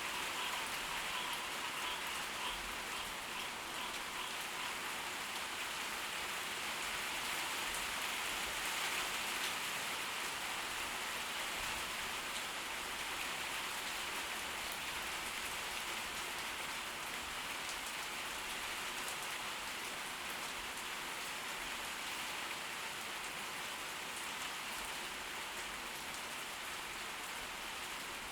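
Steady rain from a tropical storm falling, an even hiss of many drops that eases very slightly toward the end.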